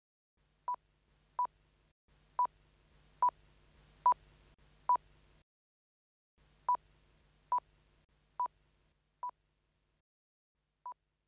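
Eleven short, high, single-pitch beeps, one per press of the volume buttons on a Cochlear Baha 5 sound processor's remote control. The first six grow louder as the volume is stepped up, and the last five get softer as it is stepped down.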